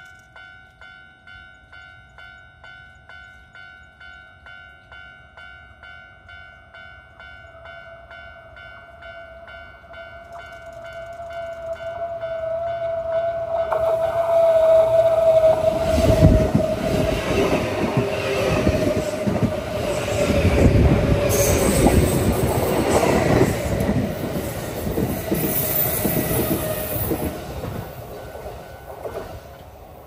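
Level-crossing warning bell ringing in a steady rapid rhythm of about two strikes a second while a Kintetsu 3220 series electric train approaches. About halfway through, the train passes close by, its wheels clattering over the rails, and the noise fades near the end.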